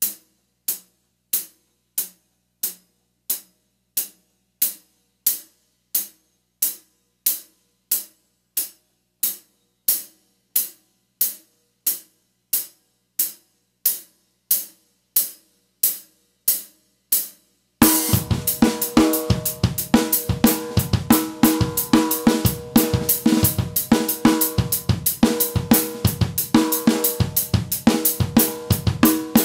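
Rock drum kit played alone. First comes a single sharp stroke repeated evenly, about three every two seconds. About eighteen seconds in, the full kit comes in with kick drum, snare and ringing cymbals in a busy driving beat.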